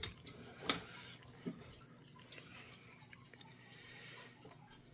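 Faint sounds from a just-opened dishwasher after its cycle: a light click a little under a second in and a small drip or knock about a second later, then only a faint hiss.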